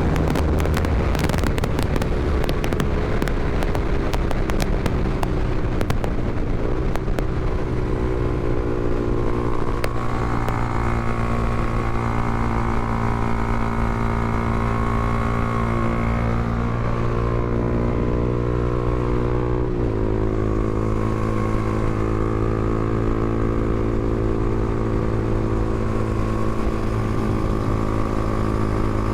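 Honda CBR300R motorcycle's single-cylinder engine running under way, with a spell of crackling in the first few seconds. The engine note then holds steady, drops in pitch about twenty seconds in as with a gear change, and runs on steadily.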